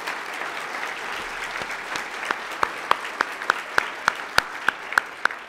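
An audience applauding. From about two seconds in, a run of louder, sharper single claps sounds close to the microphone at about three a second, and the applause fades near the end.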